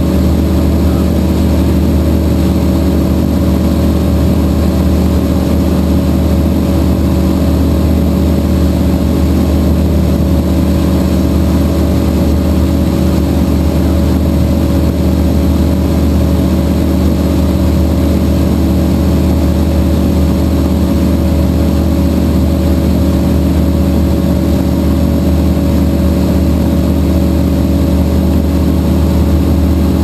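Rotax 912 four-cylinder engine and propeller of an Aquila A210 light aircraft droning steadily in flight, heard inside the cockpit.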